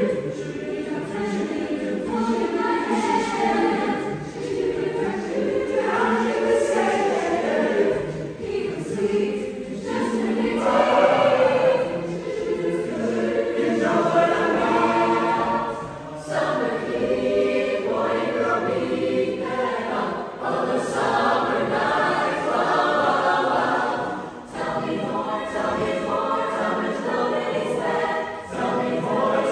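Large mixed youth choir singing in harmony, unaccompanied, in phrases with brief breaths between them.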